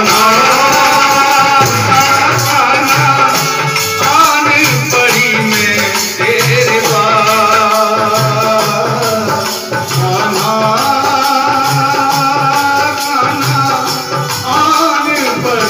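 Devotional bhajan music: a naal drum keeps a steady beat, about two strokes a second, with a jingling rattle over it, under a wavering melody line.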